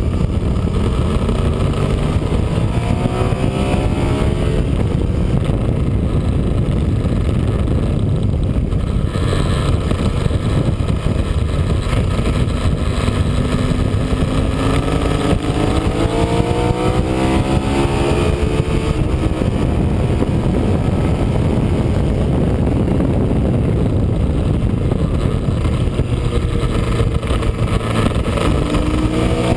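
Sport motorcycle's engine at track speed, heard from a camera mounted on the bike over a steady rush of wind. The engine note climbs in pitch three times as the rider accelerates out of corners and up through the revs.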